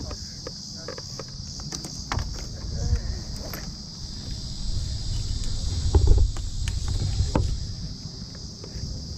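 A steady, high-pitched chorus of insects chirring, with a low rumble that swells about six seconds in and a few scattered clicks.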